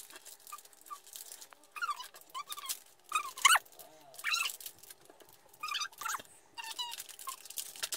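Foil blind-bag packet crinkling and tearing as it is opened by hand, in several short crackly bursts with small squeaky bits.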